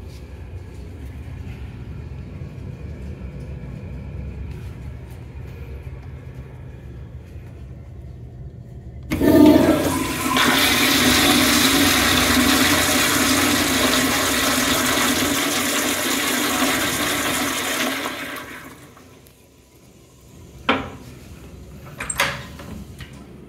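Commercial toilet with a chrome flushometer valve flushing: a sudden loud rush of water starts about nine seconds in, runs for about nine seconds and fades out. Near the end come two sharp clicks from the metal latch of the stall door being worked.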